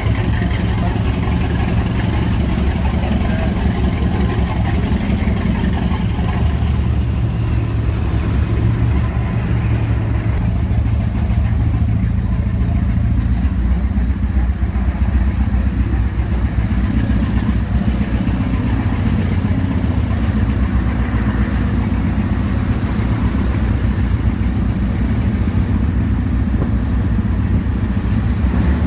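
Small boat's engine running steadily, a loud low drone with a rushing hiss over it.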